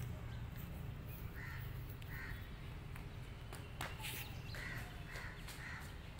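About five short, harsh animal calls, spaced out and pitched fairly high, over a steady low hum. A few sharp clicks come around the middle.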